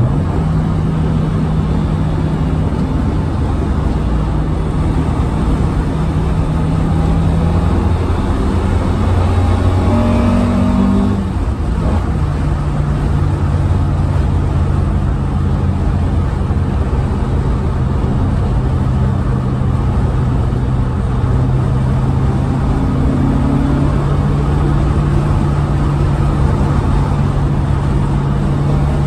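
Toyota Corolla's 4A-FE 1.6-litre four-cylinder engine, through a newly fitted Powerflow exhaust, heard from inside the cabin while driving at speed. A steady engine drone sits over road rumble. The note rises briefly and dips about eleven seconds in, then settles slightly lower.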